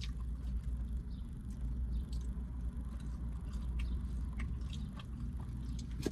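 Close-miked eating sounds: irregular small wet mouth clicks and smacks while chewing fried chicken and catfish, over a steady low hum.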